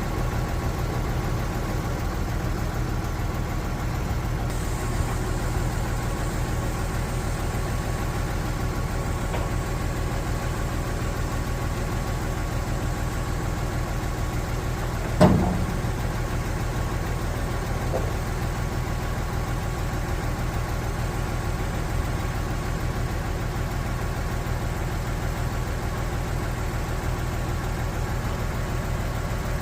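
Diesel engine of a Junjin 45 m concrete pump truck running steadily, with one sharp metallic knock about halfway through and a fainter one a few seconds later.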